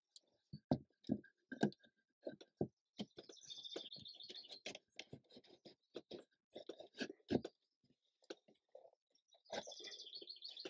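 Irregular taps, knocks and rubbing of a wooden strip against birch bark and the canoe's wooden frame as it is handled and fitted by hand, with a bird chirping in the background twice.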